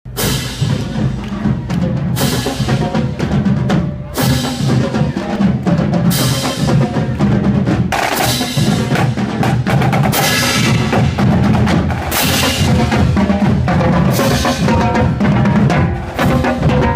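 A high school marching drumline playing a cadence: dense snare and bass drum patterns, with a loud accent hitting about every two seconds.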